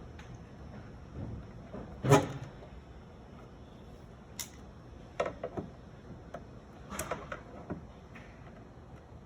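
Scattered clicks and knocks of hands working in a cramped spa cabinet, fitting and tightening the nut on a replacement audio control dial. The loudest knock comes about two seconds in, with smaller clusters of clicks further on.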